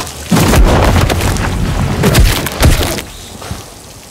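Fight blows: a rapid series of heavy punches and body impacts landing with thuds and cracks, the film's fight sound effects, dying away about three seconds in.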